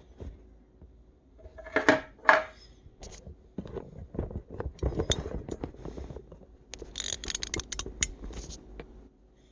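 Handling noise of a hard plastic 3D-printed bone model: scattered clicks, taps and scrapes, with two louder knocks about two seconds in and a quick run of clicks near the end.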